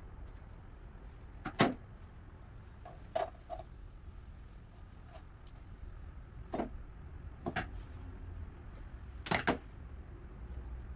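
Handling noises from hands working a moss ball on its stand: about seven short clicks and knocks, some in quick pairs, the loudest pair near the end, over a low steady hum.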